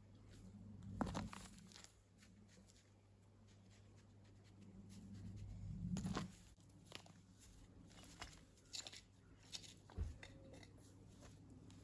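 Faint scattered scrapes, crunches and light knocks of stones and a trowel being worked in mortar, over a low steady hum.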